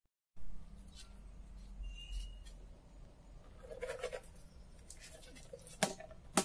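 Outdoor ambience with a low wind rumble on the microphone and scattered light knocks. Two sharp knocks near the end come from a stick striking a rubber tyre that is being rolled along a dirt path.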